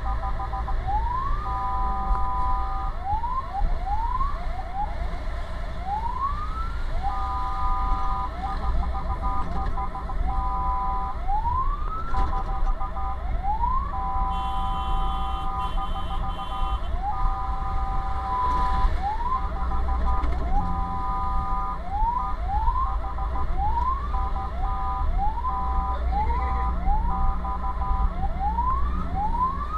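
Fire truck's electronic siren heard from inside the cab, switching back and forth between quick rising whoops and a steady, rapidly pulsing multi-tone blare. Under it runs the low rumble of the truck's engine and road noise.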